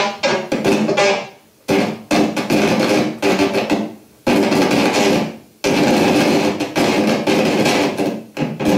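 Live experimental electronic noise music: harsh, distorted blasts with a low droning pitch in them, each cutting in sharply and dying away about every second, then holding on more steadily from about halfway through.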